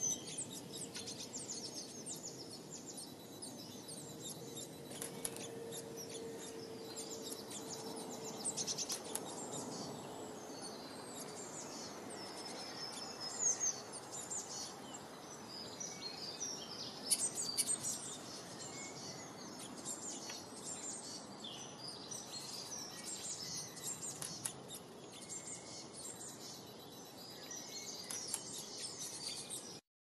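Small garden songbirds chirping and singing, many short high chirps and trills one after another over steady outdoor background noise.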